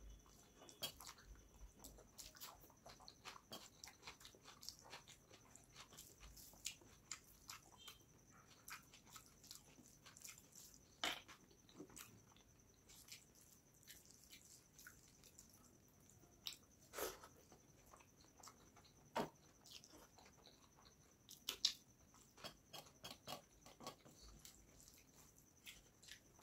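Close-miked eating sounds: soft, irregular wet clicks of chewing and of a bare hand mixing rice with fish curry on a steel plate, with a few sharper clicks.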